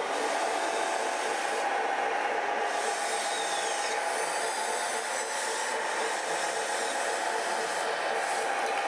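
Radio-controlled scale model vehicles working: a steady mechanical running noise of small motors and gearboxes with a fast repeating pulse, and thin whines that glide in pitch about three to four seconds in.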